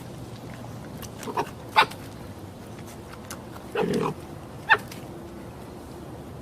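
A canine, a fox or dog being coaxed to 'talk', giving short separate calls in two groups: a few about a second and a half in, the loudest of them sharp, then a longer lower call and one sharp call around four to five seconds in.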